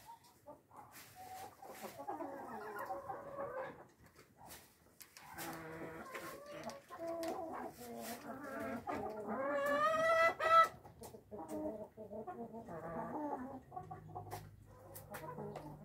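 Brahma roosters clucking and calling in short bouts. About ten seconds in comes a louder, longer call that rises in pitch and cuts off sharply.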